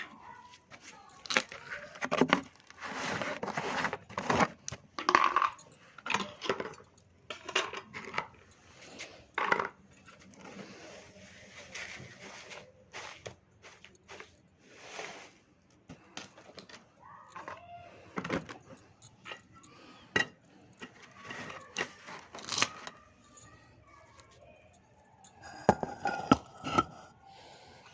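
Irregular clinks and scrapes of kitchen utensils against a bowl while more powdered sugar is added to roasted gram flour and mixed for besan laddoo.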